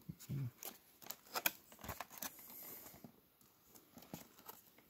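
Cardboard toy box with a plastic blister window being handled and turned over: a series of sharp clicks, crinkles and scrapes of card and plastic, with a low thump about half a second in.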